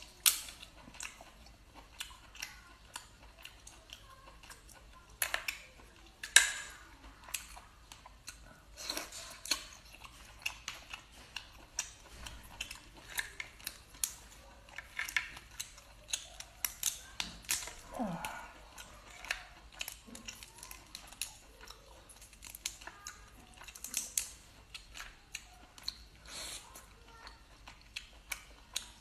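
Cooked Boston lobster shell being cracked and pulled apart by hand, many short sharp crackles and snaps, mixed with chewing.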